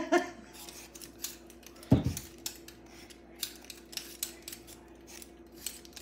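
Hand-held vegetable peelers scraping the skins off potatoes in quick, irregular strokes. There is a single low thump about two seconds in.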